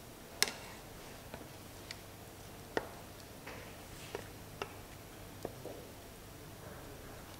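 Faint, irregular clicks and light knocks of cookware being handled at the stove, about eight in all, the loudest about half a second in.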